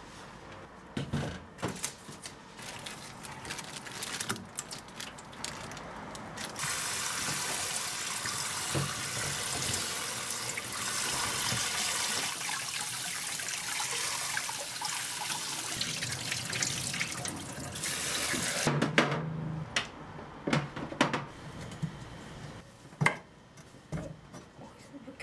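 Kitchen tap running water onto lemongrass stalks in a plastic colander for about ten seconds, a steady splashing hiss that stops suddenly. Before it come a few seconds of scattered handling knocks. After it come several sharp knocks of a cleaver on a wooden cutting board as the stalks are chopped.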